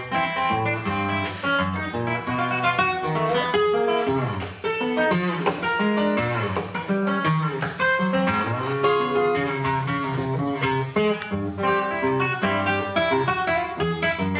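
Nylon-string classical guitar playing an Argentine gato, a quick unbroken run of plucked notes and chords.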